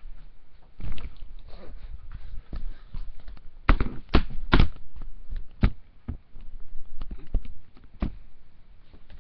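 Handling noise from a small camera being picked up and moved: rumbling and rustling with a run of sharp knocks and thumps, the loudest a cluster of three about halfway through, then single knocks a couple of seconds apart.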